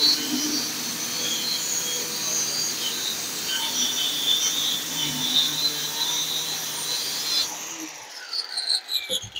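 Handheld electric circular saw cutting through plywood, a steady high-pitched whine. About seven and a half seconds in, the cut ends and the motor winds down, falling in pitch, with a few knocks near the end.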